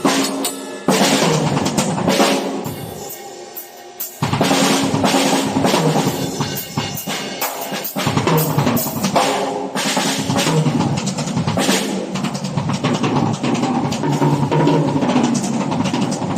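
Ludwig drum kit played loud and fast, with hits on the snare, toms and bass drum. About two seconds in the playing thins out and the hits ring away for a moment. It picks up again a little after four seconds and runs on as quick, continuous rolls and fills.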